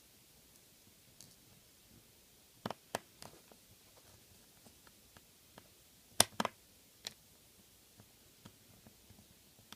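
Scattered small clicks and taps of a precision screwdriver and tiny screws against a smartphone's plastic housing as the housing screws are driven in. A few sharp clicks stand out, the loudest pair about six seconds in, with fainter ticks between.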